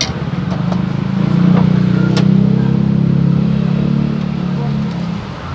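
A motor vehicle's engine running at low revs: a low, throbbing hum that swells louder about a second in and eases off near the end, with a few light clicks over it.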